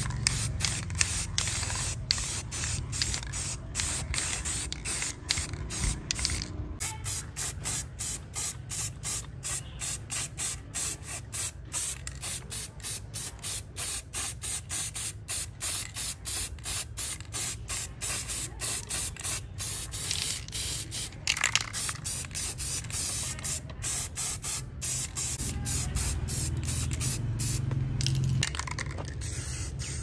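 Aerosol spray paint can hissing in many short bursts as parts are spray-painted, the bursts coming quickly and evenly through the middle stretch.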